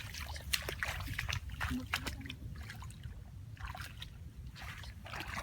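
Shallow water splashing and sloshing in irregular short splashes over a low steady rumble.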